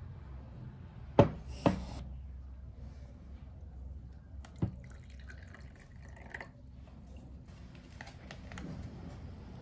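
A few sharp taps or knocks: two close together about a second in and another near the middle, over a steady low hum.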